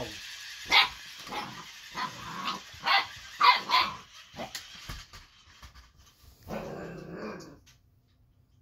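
Eight-week-old boxer puppy barking in a quick string of short, sharp barks, loudest about three and a half seconds in, then one longer sound of about a second before it goes quiet.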